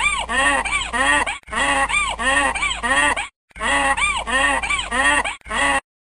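Donkey braying: three long bouts of repeated rising-and-falling calls, about three a second, with short breaks between bouts. The sound cuts off suddenly near the end.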